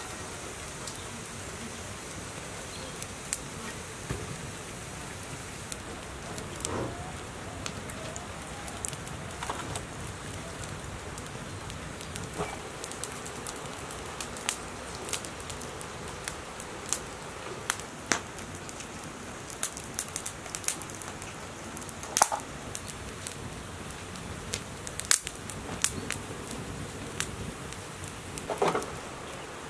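Wood fire of split logs and twigs crackling in a metal fire pan, with sharp pops scattered over a steady hiss. The pops come thicker and louder in the second half.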